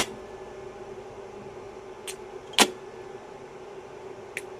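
Arc welder humming steadily while switched on, with four sharp clicks or taps. The two loudest come at the start and about two and a half seconds in.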